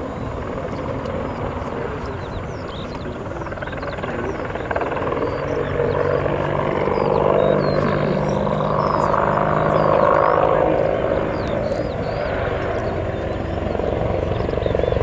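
Boeing AH-64 Apache attack helicopter in display flight: the steady drone of its rotors and twin turboshaft engines, swelling louder in the middle as it draws closer, easing a little, then rising again near the end.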